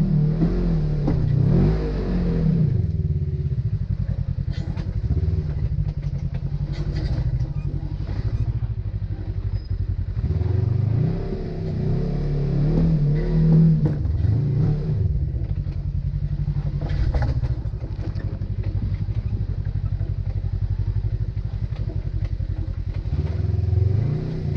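Polaris RZR side-by-side's engine working at low speed, revving up and easing off in short bursts as it crawls over rock ledges. A few knocks and clatter come from the machine and rocks along the way.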